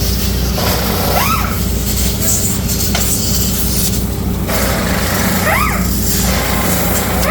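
Steady, loud machinery drone with a constant low hum and hiss, broken about four times by brief whines that rise and fall in pitch.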